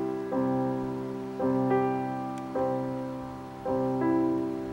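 Slow solo piano music: chords struck about once a second, each left to ring and fade before the next.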